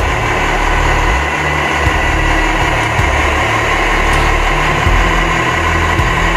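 Radio-controlled model construction machines running, giving a steady engine-like drone with a shifting low rumble and a few light clicks.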